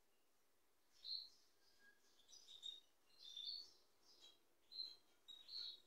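European goldfinches calling: a string of faint, short, high chirps, about one every half second.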